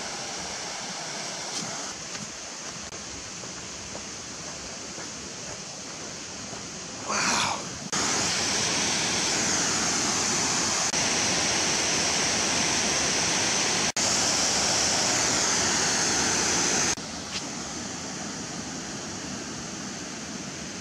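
Steady rush of a waterfall. A brief louder burst comes about seven seconds in, then the rush gets louder and brighter, dips out for an instant partway through, and falls back to the softer level a few seconds before the end.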